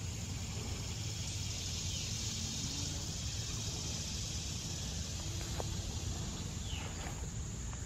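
Steady high-pitched drone of a summer insect chorus over a low rumble, with a brief falling note about seven seconds in.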